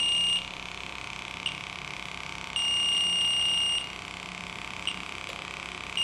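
Fieldpiece SRL2 infrared refrigerant leak detector in turbo mode alarming with a solid high-pitched tone, the sign that it is sensing refrigerant from a tiny leak. The tone stops just after the start, sounds again for about a second from about two and a half seconds in, and starts once more at the very end, with two short chirps in between.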